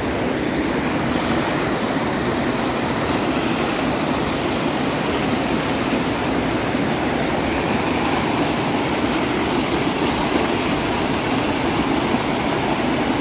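Mountain creek rushing steadily, a constant even wash of water noise.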